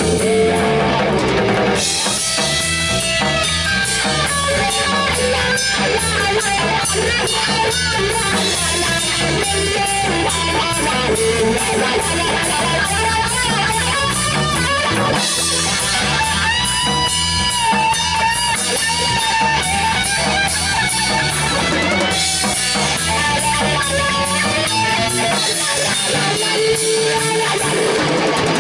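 Live rock band playing: electric guitar, electric bass and a drum kit keeping a steady beat.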